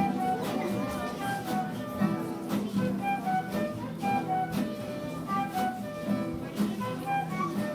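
Instrumental introduction of a song: plucked guitar and a flute-like melody over a steady beat.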